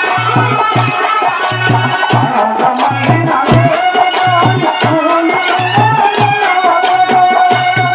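Kolatam folk music: a drum beating a quick, steady rhythm under a wavering melody line, with sharp clicks on top from the dancers' wooden kolatam sticks striking together.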